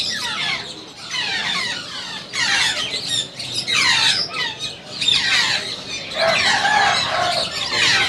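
African grey parrot chicks squawking repeatedly while being hand-fed formula by syringe: a run of short, downward-sliding begging calls, one after another.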